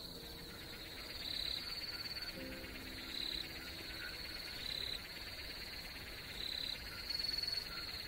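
Chorus of night insects in forest: a steady high trill with short louder chirps repeating every second or two. A brief low, humming tone comes in about two and a half seconds in.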